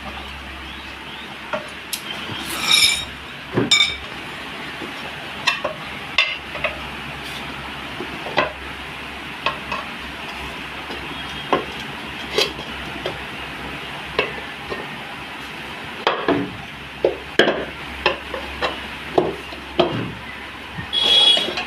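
Scattered metal clinks and knocks, several bunched together near the end, over a steady background hiss: hand tools and a motorcycle wheel rim handled during a tyre change.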